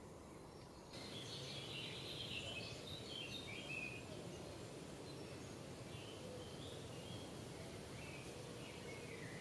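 Forest ambience: songbirds chirping and trilling in short phrases over a steady low background noise. The sound gets louder about a second in, with the most birdsong in the next few seconds and again near the end.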